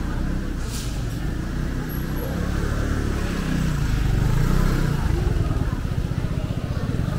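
A motor vehicle's engine running close by, its low rumble swelling to a peak in the middle and then easing, with a steady fast pulsing toward the end.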